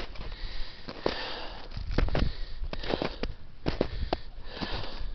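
A hiker's heavy breathing through the nose while climbing, in repeated sniffing breaths, mixed with the sharp crunches of boot steps in crusty snow.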